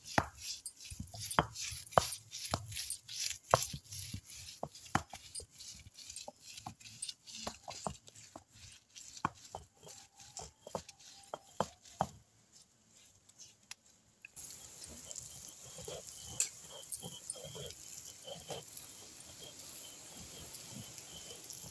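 Stone roller of an ammi grinding stone being worked over fresh leaves, crushing them into paste: a steady run of knocks and scrapes, about two or three a second. It pauses about twelve seconds in, then fainter, irregular knocks resume over a hiss.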